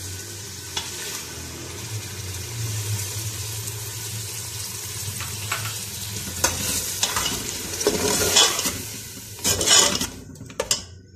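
Mutton pieces sizzling in hot oil in a pressure-cooker pot while a slotted metal spoon stirs and scrapes them around the pot. The scrapes grow louder in the last few seconds, and the sizzle cuts off suddenly near the end.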